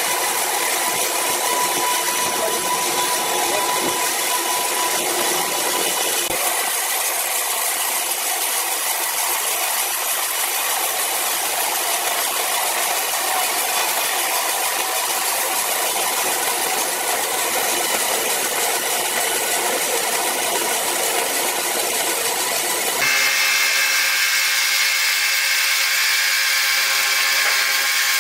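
Horizontal band sawmill blade cutting lengthwise through a large squared timber block, a steady mechanical sawing noise with a high hiss and several steady tones from the running machine. About three quarters of the way through, the sound shifts abruptly to a brighter, whinier tone.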